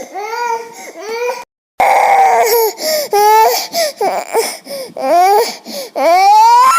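A young boy crying and sobbing: short broken wails with sharp rises and falls in pitch between catching breaths. It cuts to silence for a moment about a second and a half in, and ends on a long, rising wail.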